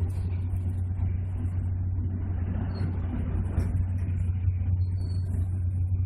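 Passenger train running at speed, heard from inside the carriage: a steady low rumble that swells a little about halfway through.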